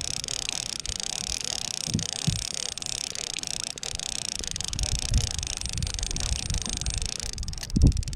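Wind buffeting the microphone: an uneven low rumble under a steady hiss, with a louder knock near the end.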